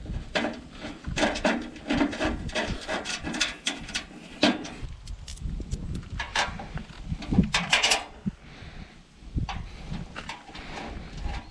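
Bolts, washers and nylon-insert lock nuts being fitted by hand into a Uniteck Unifix 600B metal solar-panel support: irregular metallic clicks, taps and rattles, with a quick cluster of louder clicks about eight seconds in.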